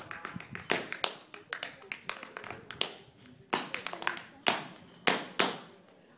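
Hard-soled dance shoes striking the floor in an unaccompanied solo dance: quick, irregular taps at first, then sparser, louder stamps, with a short pause at the end.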